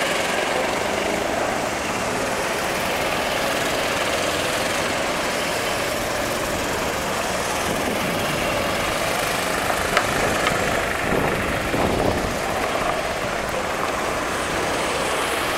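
Engines of several Sodi RT8 rental go-karts running as the karts lap the track. The engine note of one kart rises and falls as it passes close, a little past the middle.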